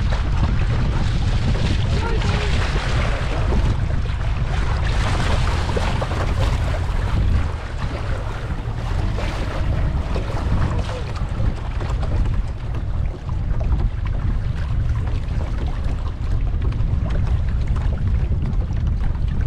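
Wind rumbling on a GoPro camera's microphone aboard a moving boat, with the boat's running noise and water hiss underneath.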